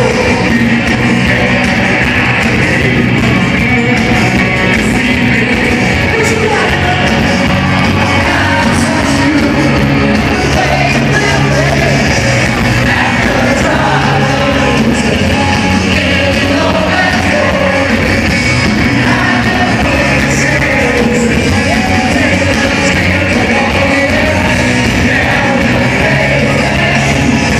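Live rock band playing loud with sung lead vocals, heard from within the concert crowd, with voices in the crowd yelling along.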